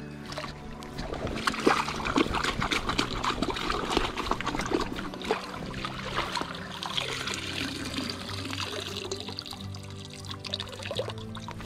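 Shallow stream water trickling and splashing as a hand dip net is worked and water pours back out of it, with a run of small splashes through the middle. Background music with steady held low notes plays underneath.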